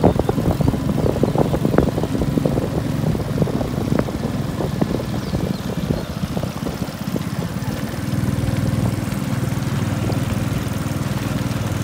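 Long-tail boat engine running steadily underway, with irregular knocks and splashes over it in the first half; the drone grows steadier and a little louder about eight seconds in.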